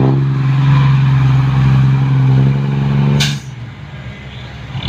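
Diesel dump truck engine revved up and held at steady high revs for about three seconds, then letting off abruptly with a short sharp hiss, as the truck pulls away in gear.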